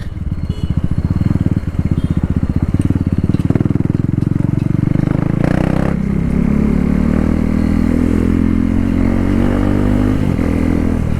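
KTM Duke 390's single-cylinder engine, very loud with the stock exhaust removed, pulsing at low revs for the first half. From about six seconds in, the revs climb steadily as the bike pulls away.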